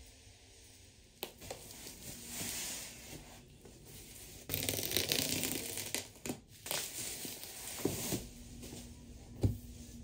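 Bubble wrap crinkling and packing tape tearing as a monitor box is unwrapped by hand, with a loud stretch of rustling about halfway through. A single sharp knock comes near the end.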